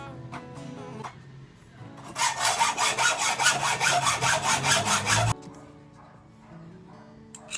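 Hand sawing through a metal fan-motor shaft: a fast, even run of about five strokes a second that starts about two seconds in and stops abruptly about three seconds later.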